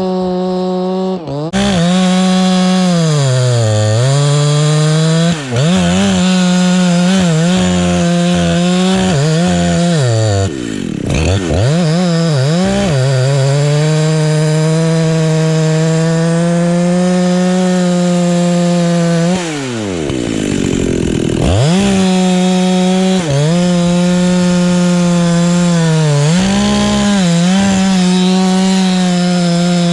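Two-stroke chainsaw with a ported muffler running at full throttle, cutting ash wood. Its pitch sags under load about four seconds in. The revs fall off twice, once about a third of the way through and again around two-thirds, and then climb back to full speed.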